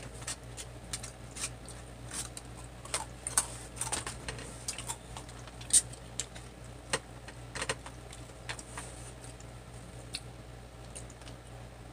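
Irregular small clicks and taps of eating at a table: a fork on a plate, chewing, and a plastic drink bottle being twisted open and handled, with the sharpest click about six seconds in. A low steady hum lies underneath.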